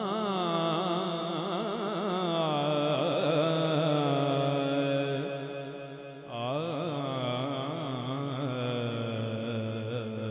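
A man singing the drawn-out, wordless opening of an Urdu/Punjabi naat, in long wavering melismatic notes. It comes in two long phrases, the second starting about six seconds in, over a steady low sustained tone.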